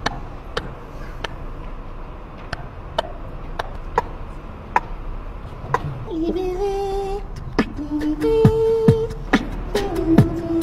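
A person beatboxing: sharp percussive clicks and snares in a steady beat, with a hummed melody of held notes and deeper kick sounds joining about six seconds in.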